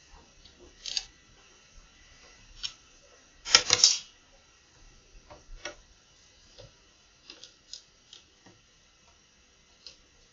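Doves pecking seed off a hard balcony ledge: scattered sharp taps and clicks of beaks on the surface, with a louder flurry of several knocks about three and a half seconds in.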